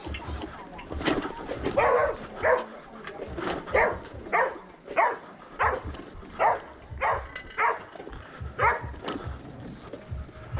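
A dog barking over and over, a dozen or so sharp barks at roughly one to two a second.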